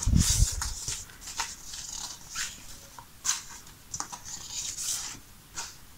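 Stiff cardboard picture cards being handled and sorted by hand: a low bump at the start, then light papery slides and soft taps scattered through the rest.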